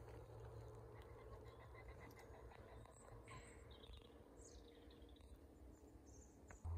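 Near silence: faint outdoor ambience with a low rumble and a few faint bird calls in the middle.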